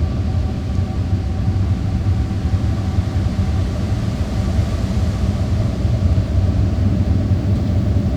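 A steady low rumble with a faint, even hum above it.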